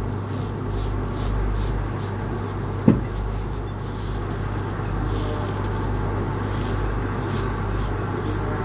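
Karve Christopher Bradley closed-comb safety razor with a Nacet blade cutting lathered stubble in a run of short strokes, about two to three a second, with a single sharp knock about three seconds in, over a steady low hum.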